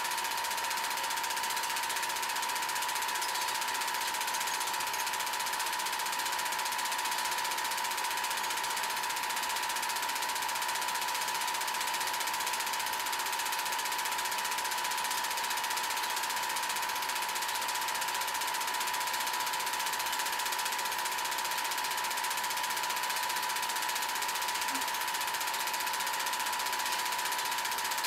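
Home-movie film projector running: a steady mechanical whirr and clatter with a constant whine that holds unchanged throughout.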